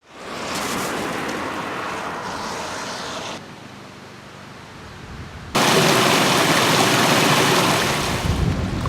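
Heavy typhoon rain as a steady hiss, in three shots joined by sudden cuts: it fades in, drops quieter about three seconds in, and comes back much louder two seconds later.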